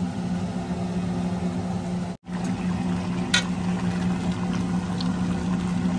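Chicken curry in coconut milk bubbling at a simmer in a stainless-steel pot, over a steady low hum. The sound breaks off for a moment about two seconds in, and a spoon clinks once against the pot about a second later.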